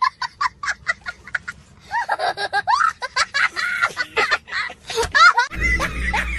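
High-pitched laughter: a run of short, quick giggles, then longer rising-and-falling laughs from about two seconds in.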